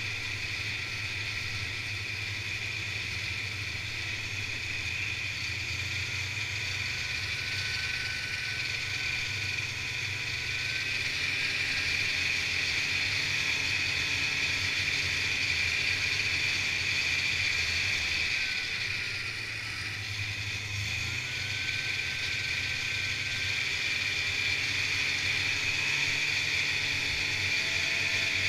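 Snowmobile running steadily along a trail, engine and track noise with a steady high whine. The sound dips briefly about two-thirds of the way through and then picks up again.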